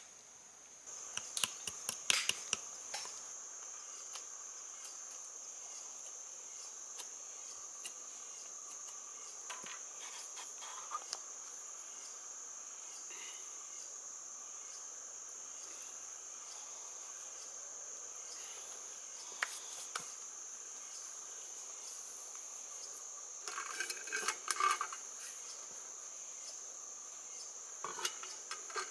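Insects, likely crickets, trilling in one steady, high-pitched band, with scattered clinks and knocks in short clusters, the busiest about two seconds in and again near the end.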